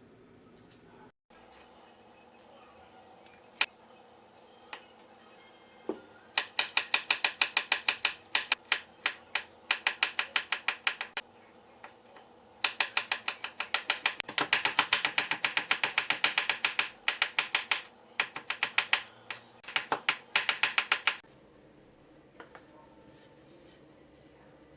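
Knife chopping rapidly on a cutting board, about six strokes a second, in two runs: one of about five seconds starting about six seconds in, then a longer one of about eight seconds. A few single taps come before.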